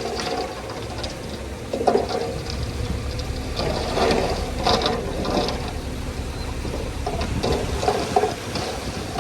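Komatsu D41E crawler bulldozer working: its diesel engine runs under a steady clatter of the steel tracks, with louder clanks and squeaks about two seconds in, around four to five seconds in, and again near eight seconds.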